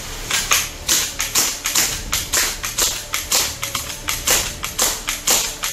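Background music with a steady beat of sharp, hissy percussion strokes, about two a second.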